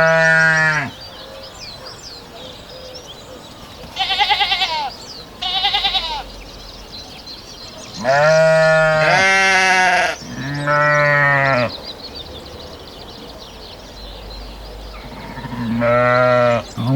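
Sheep bleating over and over. Most calls are long and deep, some overlapping, and two shorter, higher, wavering bleats come about four seconds in.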